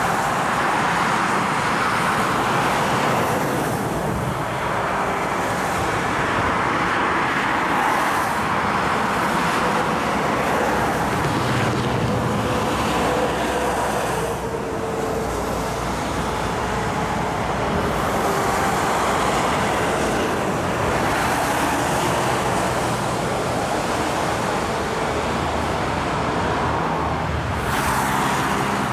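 Steady motorway traffic noise: tyres hissing on a wet road as cars and a fire engine pass, the sound swelling and easing as vehicles go by.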